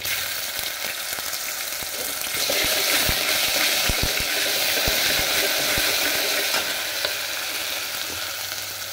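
Hot oil sizzling in an aluminium pot as a tempering of mustard seeds and green chillies fries and a spoonful of paste goes in. The sizzle swells a couple of seconds in, with a few soft knocks from the stirring spoon.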